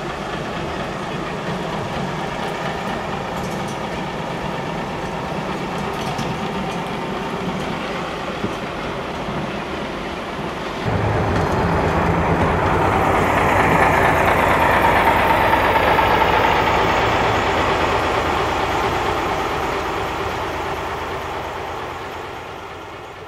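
The 1934 Škoda 'Modrý šíp' motor railcar M 274.004 running. For the first half it is heard from a distance. About eleven seconds in the sound jumps to close by as the railcar passes, then it fades steadily as the railcar runs away.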